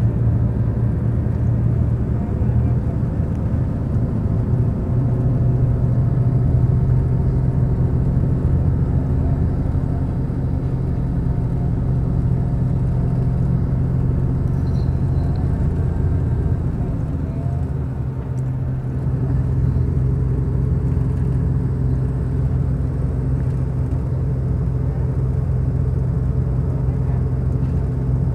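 Coach bus engine heard inside the passenger cabin: a steady low drone that dips briefly about two-thirds of the way through.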